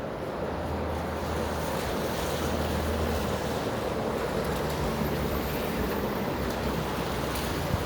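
Wind blowing across the microphone, a steady rushing noise.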